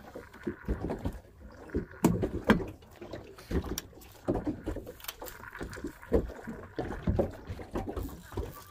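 Sea water slapping against the hull of a small fishing boat, with irregular low thumps and knocks.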